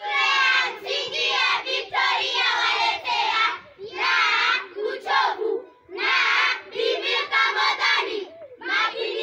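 A group of young schoolchildren singing and chanting a Swahili shairi verse in unison, in loud phrases broken by short pauses.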